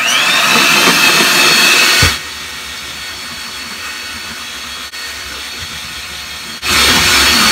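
Handheld electric mixer running, its twin beaters whisking egg yolks into whipped egg whites. It is a steady motor whine that comes on at the start, drops much quieter after about two seconds, and turns loud again near the end.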